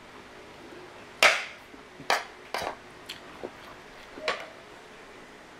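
Metal fork and spoon clinking and scraping against a ceramic plate: about half a dozen short clinks, the loudest about a second in.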